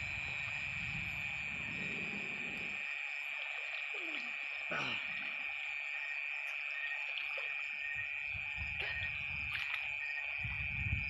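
Steady high-pitched trilling of night insects, with water sloshing and rumbling at the start and again near the end.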